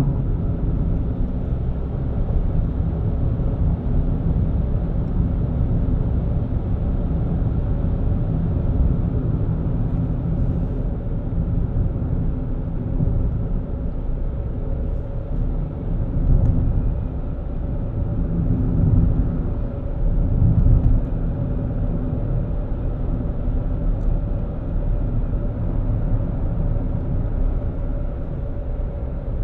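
A car driving along a road: a steady low rumble of engine and tyre noise, swelling briefly a few times.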